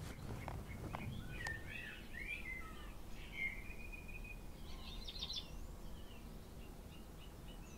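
Wild birds chirping and calling over a low outdoor background rumble, with a brief rapid trill about five seconds in.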